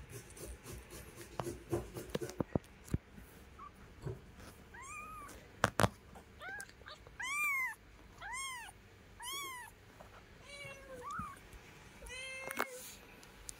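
Very young kittens mewing: a string of about eight short, high-pitched cries, each rising and falling in pitch, in the second half. Soft taps and rustles come before them, with one sharp click just before the cries get going.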